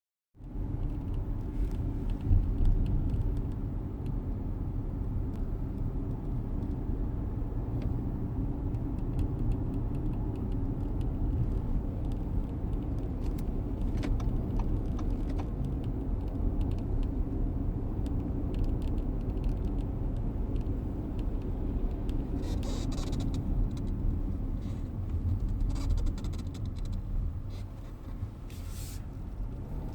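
Steady road and engine rumble inside the cabin of a moving 2016 Audi Q7. Short squeaks and creaks come now and then from the front seat, like leather rubbing on leather: a seat squeak fault in the new car.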